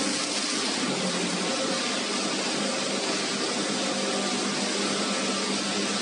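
Plastic film washing line running: a steady mix of motor hum and water churning and splashing in the washing tank as the paddles and screw washer turn the film.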